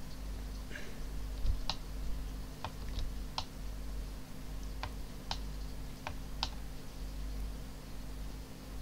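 Scattered clicks from a computer keyboard, about eight, irregularly spaced, over a steady low electrical hum.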